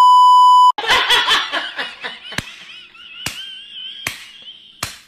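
A loud steady test-tone beep lasts under a second, then a woman breaks into high-pitched, squealing laughter, punctuated by four sharp smacks about a second apart.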